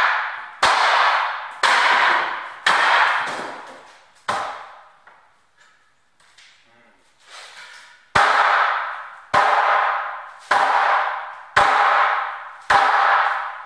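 Hammer blows striking a bookshelf during demolition, about one a second, each hit ringing out for about a second. There are four blows, a pause of a few seconds, then five more.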